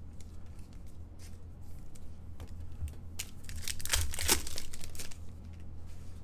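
Foil wrapper of a hockey card pack torn open and crinkled by hand, the crackling loudest about three to four seconds in.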